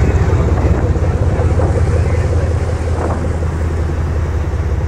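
Low, steady rumble of a sportfishing boat's twin Caterpillar C-12 diesel engines, with wind buffeting the microphone.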